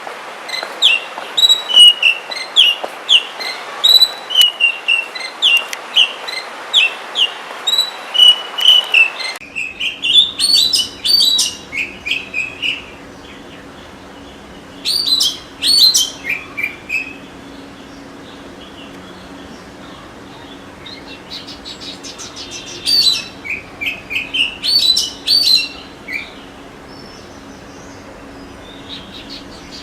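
Oriental magpie-robin (kacer) singing: quick runs of short, clear whistled notes, then separate varied phrases with pauses between them. About nine seconds in, the background hiss gives way to a faint low hum, as if from a different recording.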